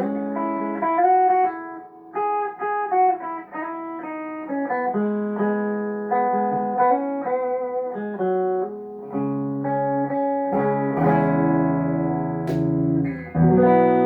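Tagima TW61 electric guitar being played: a line of single plucked notes, then sustained chords from about nine seconds in, with one sharp click about twelve and a half seconds in.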